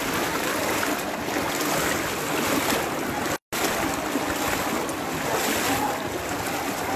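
Floodwater sloshing and splashing around the legs of people wading through a flooded street, a steady watery rush. The sound cuts out completely for an instant about three and a half seconds in.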